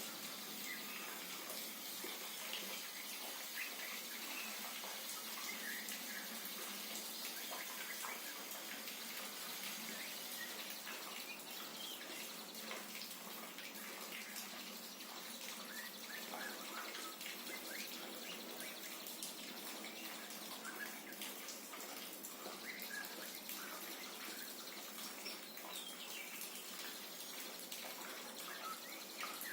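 Steady rush and patter of falling water, as a young white-rumped shama is given a rain-water bath, with short faint bird chirps now and then.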